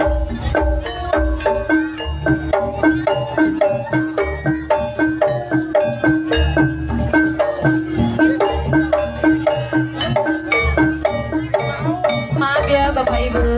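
Javanese jaranan gamelan accompaniment: a fast, even stream of struck metal mallet-instrument notes over low drum beats. Near the end a sliding, wavering melody line comes in on top.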